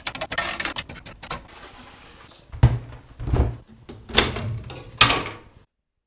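A rapid clatter of clicks and rattles, then four dull knocks about a second apart, in a small room.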